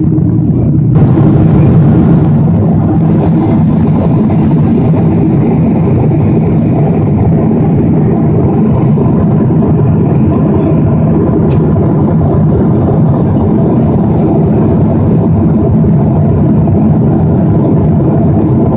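Steady jet airliner cabin noise in cruise: a dense low rumble of engines and airflow, with one brief faint high tick about eleven seconds in.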